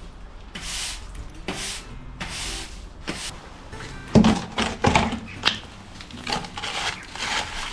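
A brush scrubbing patio paving in repeated rough strokes, about one a second, with a louder patch of scraping and knocking about four seconds in. Faint background music underneath.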